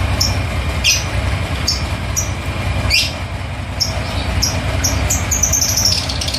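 VW Safari's air-cooled 1600 cc flat-four idling steadily while warming up. Over the idle come a series of short, high chirps, and a longer falling trill near the end.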